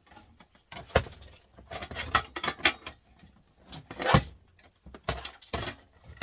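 Irregular clicks, rattles and knocks of hard printer parts being handled and pried at during disassembly, the two loudest knocks about a second in and about four seconds in.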